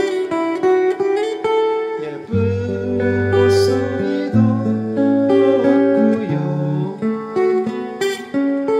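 Steel-string acoustic guitar played fingerstyle: a melody over ringing bass notes, opening with a quick mordent, one note plucked, the note above hammered on and pulled straight back off, then running on through the next bars with a few short slides.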